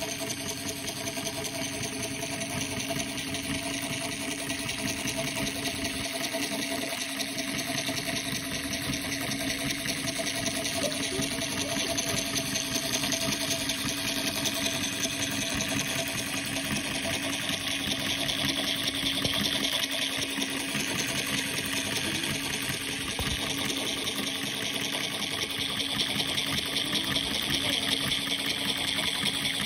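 Small electric motor driving a model oil pumpjack desk toy: a steady whir with a fast, continuous rattle from its running metal linkage.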